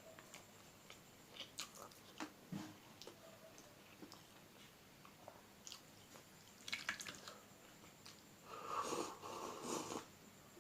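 A person eating curry, chewing with scattered soft wet mouth clicks and smacks. A louder, wetter stretch of eating noise comes near the end.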